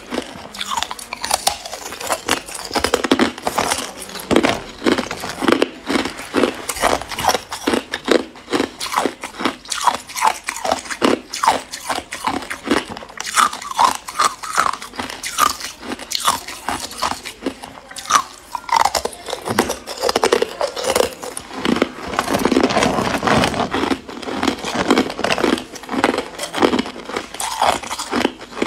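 Thin sheets and cubes of ice bitten and chewed, a rapid run of crisp cracks and crunches one after another.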